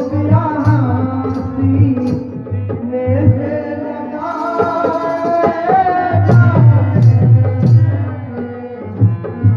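Qawwali: a singer's ornamented, sliding melodic line over steady hand-drum strokes and held instrumental tones.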